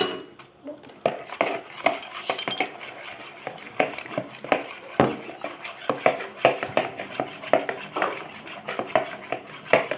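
Spoon stirring glue and water in a bowl, clinking and scraping against the bowl in quick, irregular strokes.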